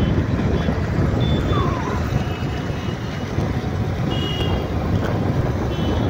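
Street traffic of motorbikes and auto-rickshaws passing, under a steady low rumble of wind on the microphone, with a few short high beeps.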